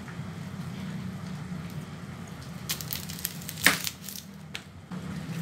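Kitchen knife cutting into a whole onion on a cutting board: a few crisp crunches, the loudest just past the middle, over a low steady hum.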